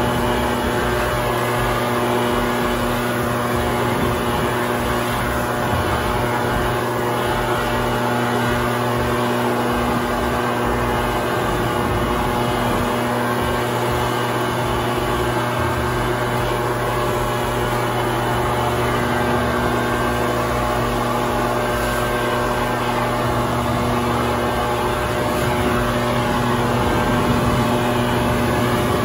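Leaf blower running steadily at full speed, its air blast driving acorns and dirt across the ground.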